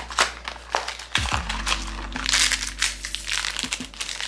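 Crinkling and crackling of a small plastic and foil toy package being pulled open by hand, with the rustling densest in the second half. Background music plays underneath.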